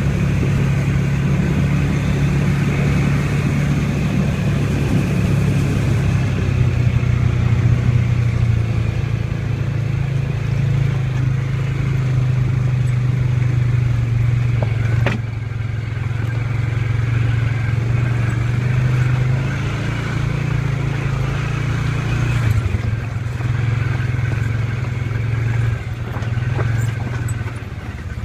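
ATV engine running under way, a steady low drone whose pitch and level shift a few times with the throttle. A single sharp knock about halfway through.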